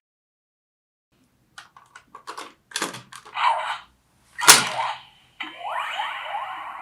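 Ben 10 Disc Ultimatrix sound effects. After a moment of silence comes a run of sharp clicks, then a few short electronic blasts and a loud hit about halfway through. A sweeping electronic effect with rising tones follows near the end.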